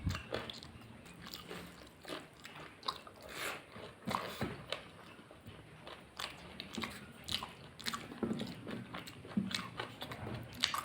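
A person chewing food close to the microphone, with irregular short crunchy clicks and wet mouth sounds.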